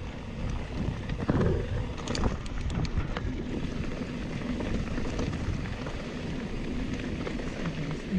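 Nukeproof Mega 297 mountain bike rolling over loose rocky gravel, its tyres crunching and the bike rattling, with wind rushing across the camera microphone. A few sharp knocks come about two to three seconds in.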